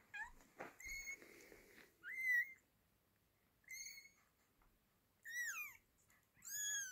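Newborn kitten mewing: about six high, thin cries with short gaps between them, several rising and then sliding down in pitch.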